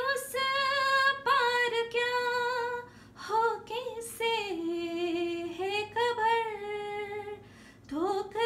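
A woman's voice singing a slow melody without words, in long held, gliding notes with short breaks between phrases, unaccompanied.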